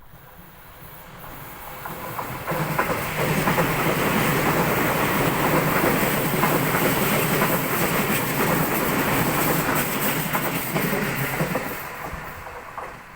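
Electric commuter train on the Seibu Ikebukuro Line passing by, its wheels clattering over the rail joints. It builds up over the first few seconds, stays loud for about eight seconds, and fades away near the end.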